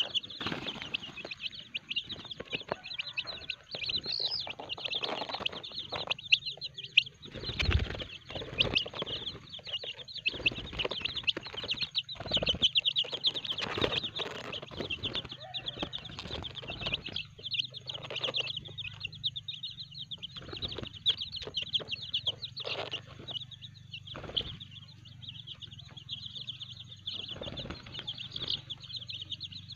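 A flock of young kampung chickens peeping constantly in quick, high cheeps. Wings flap and rustle again and again as the chicks hop about and climb onto a person's lap.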